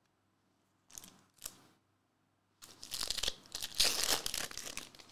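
Plastic wrapper of a Panini Hoops trading-card pack crinkling and tearing open by hand: two brief rustles about a second in, then a longer stretch of ripping and crinkling.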